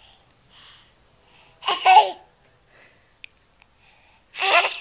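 A small child sneezing twice, about two and a half seconds apart: short, loud, voiced sneezes.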